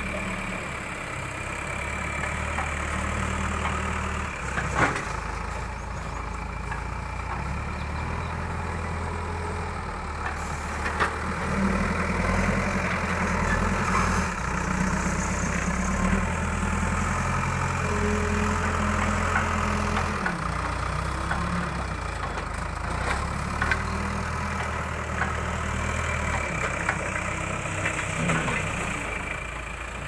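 Tata TH76 backhoe loader's diesel engine running while its front bucket scoops and lifts sand. The engine speed rises and falls several times under load, with a few sharp knocks.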